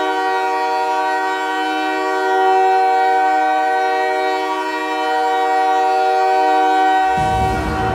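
Montréal Canadiens goal horn blowing one long, steady chord of several notes. About seven seconds in, it gives way to the goal song music starting.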